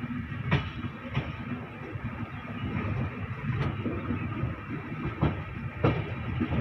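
Indian Railways passenger coach running along the track, heard from its open doorway: a steady rumble and rush of air with a handful of sharp clacks at uneven spacing as the wheels cross rail joints.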